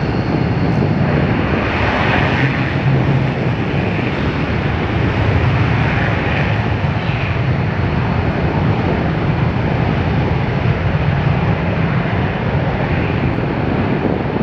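An F-15J fighter's twin afterburning turbofan engines at full power with afterburners lit during the takeoff roll: loud, steady jet noise with a deep rumble.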